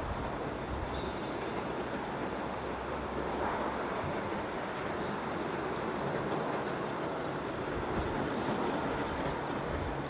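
Steady rumble of a small narrow-gauge passenger wagon rolling along the rails, heard from afar.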